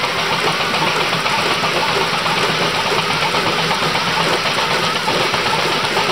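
Scale-model traction engine belt-driving a model beam engine: a steady engine running sound with a hiss over it.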